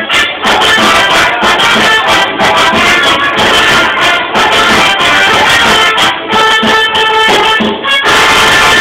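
Loud live music from an electronic keyboard: sustained melody notes over a steady beat. The sound changes about eight seconds in.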